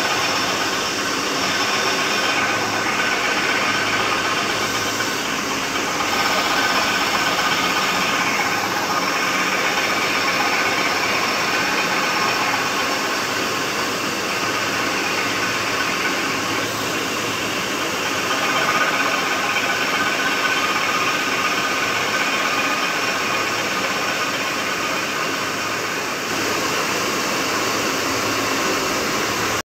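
Flywheel facing machine resurfacing a spinning flywheel, a belt-driven grinding head working across its face. A steady, loud grinding hiss runs over the whir of the machine's motor and drive.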